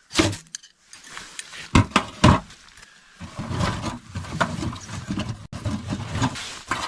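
Three sharp splitting blows on ice-covered, soaking-wet firewood, the second and third close together, followed by a few seconds of rough rustling and rumbling.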